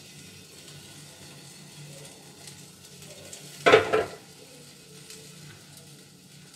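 Kitchen cookware handling over a faint steady background hum, with one brief loud clatter a little under four seconds in.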